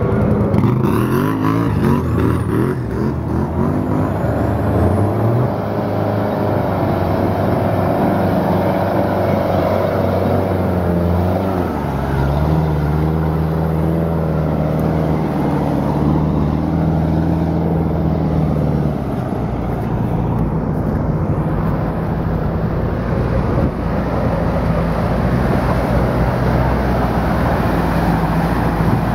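Off-road vehicle's engine running, its pitch rising and falling as the revs change, with a step up about twelve seconds in and a drop near twenty seconds.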